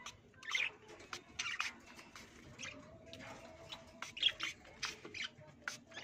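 Hand spray bottle misting caged pet parakeets in a series of short squirts, with small squeaks and squawks from the birds in between.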